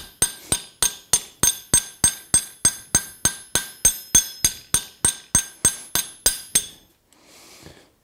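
Light ball-peen hammer tapping a hot rivet on a pair of forged tongs over a steel spacer plate on the anvil, peening the rivet head down to join the tong bosses. The strikes come evenly at about four a second, each with a bright metallic ring, and stop about six and a half seconds in.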